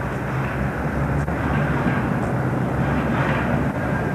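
Steady low outdoor rumble with a faint hum, slightly swelling about three seconds in.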